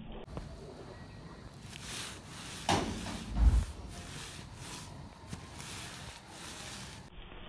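An American Bully puppy scrabbling and rustling in long grass: repeated scraping strokes, about two to three a second, with a heavy thump about three seconds in.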